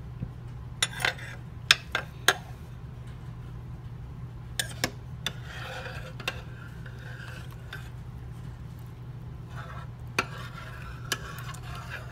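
A spoon stirring a thick bean, tomato and noodle mixture in a slow cooker's crock: wet scraping and sloshing, with a dozen or so sharp clicks of the spoon knocking the crock, five of them in the first couple of seconds. A low steady hum runs underneath.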